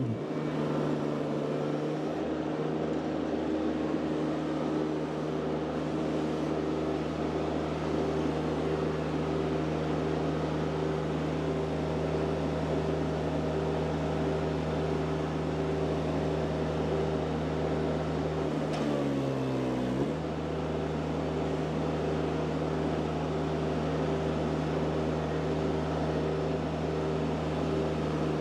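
Mini skid steer engine running steadily at working speed while the grapple moves logs. About 19 seconds in, the engine note sags for a second and then comes straight back up, as if briefly loaded.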